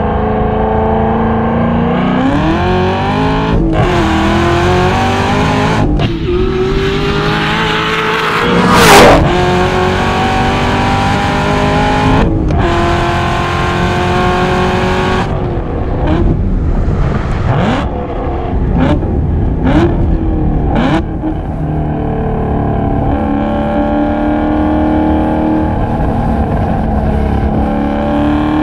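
Hennessey HPE850 Chevrolet Camaro ZL1 1LE's supercharged 6.2-litre V8 under hard acceleration, its note rising in pitch through several gears with a break at each upshift. There is a loud, brief burst about nine seconds in, and short gaps in the engine note through the second half.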